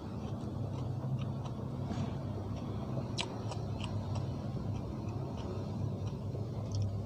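A person chewing a mouthful of sticky rice and som tam close to the microphone: irregular small wet clicks and smacks, with one sharper click about three seconds in, over a steady low hum.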